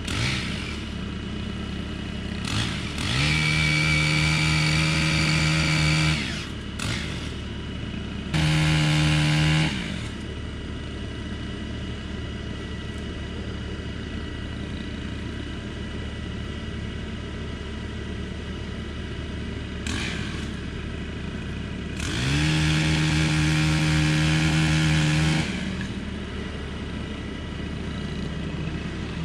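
Small chainsaw revved to full throttle three times while cutting into a small tree, making the face cut before it is pulled over. Each burst rises quickly to a steady high whine: one about three seconds in, a short one near ten seconds, and a longer one a little after twenty seconds. A lower steady engine sound runs underneath.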